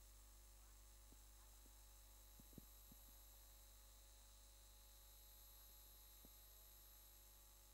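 Near silence: steady low electrical hum with a faint high whine, and a few faint clicks, a small cluster of them about two and a half to three seconds in.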